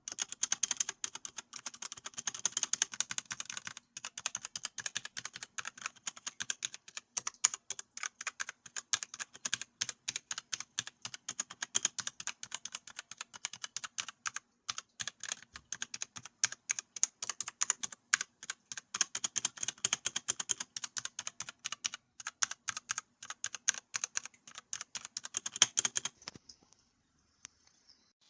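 Fast typing on a DIERYA DK63 60% mechanical keyboard with linear Gateron Red switches: a quick, dense run of key clicks that pauses briefly about four seconds in and stops near the end.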